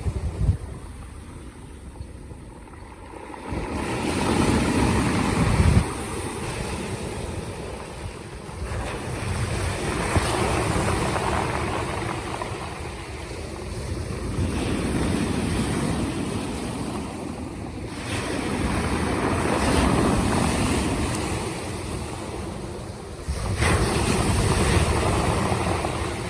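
Black Sea waves washing onto the shore, the sound swelling and falling back every few seconds.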